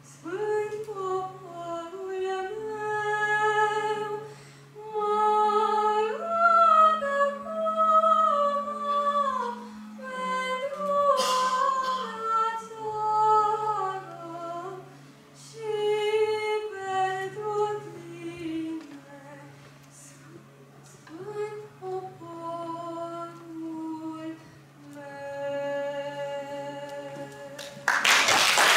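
A boy's solo singing voice through a microphone in a small room, a slow melody with a low note held underneath. Applause breaks out near the end.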